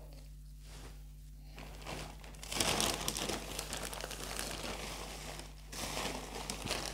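Plastic bag of potting soil crinkling as a hand rummages in it for soil. It starts about two and a half seconds in and breaks off briefly near the end before going on.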